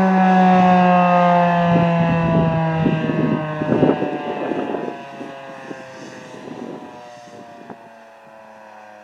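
Federal Signal 2001-130 electromechanical siren winding down at the end of its alert test signal: its tone slides slowly lower in pitch and fades. Rough, gusty noise comes through from about two to five seconds in.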